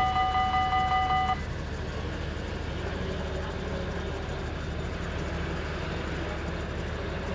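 Dutch level-crossing warning bell ringing in quick repeated strokes, cutting off about a second and a half in as the crossing clears after the train. A steady low hum of street traffic is left behind.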